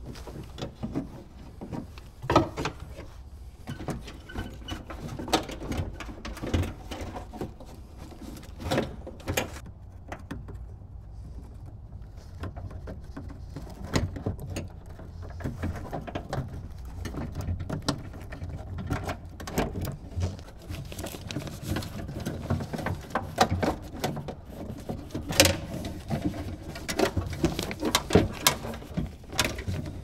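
Irregular clicks, knocks and rattles of hands working inside a car door cavity, freeing the door lock unit and its cables, over a steady low hum.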